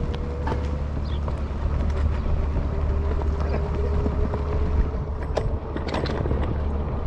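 Marti rental electric scooter being ridden: a thin motor whine that drifts slowly up in pitch and drops out for a stretch, over a steady low wind rumble on the microphone, with scattered clicks and knocks.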